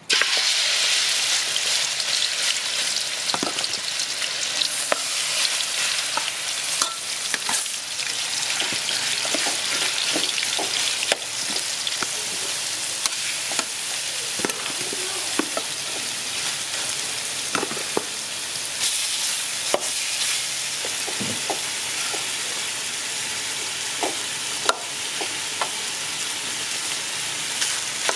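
Pork rib pieces hit hot oil in a metal pan and start a loud sizzle all at once. They keep frying steadily, with scattered clicks and scrapes of a metal spatula stirring them against the pan.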